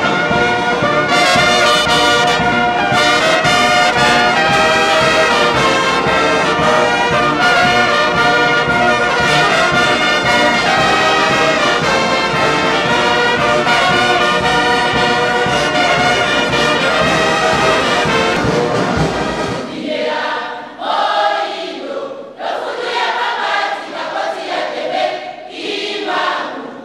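Brass band with trombones and trumpets playing a full, steady passage. About two-thirds of the way through, the band stops and a choir sings.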